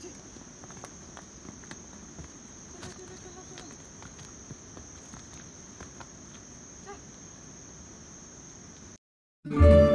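A steady high-pitched drone of insects, with faint scattered steps of cattle and a walker on a stone path. About nine seconds in the sound cuts out and background music starts.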